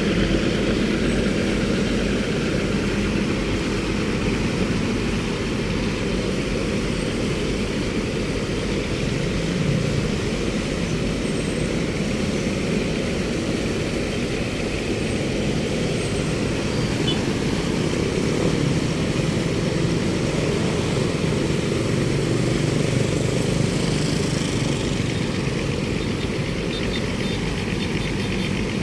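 Steady road traffic noise: vehicle engines running, with no single event standing out.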